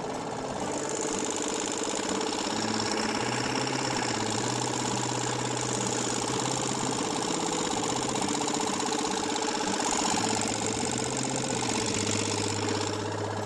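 Small outboard motor running steadily at trolling speed, pushing the boat along.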